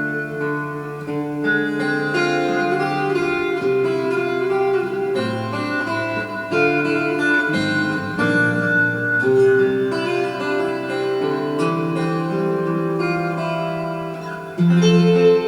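Instrumental music with plucked-string notes held and overlapping, the melody moving slowly from note to note; a louder low note enters about a second before the end.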